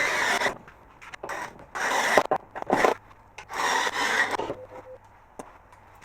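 Screws being driven into the wall to mount a Mckay can crusher: four scraping, grinding strokes of up to about a second each with short pauses between them, then quieter for the last second or so.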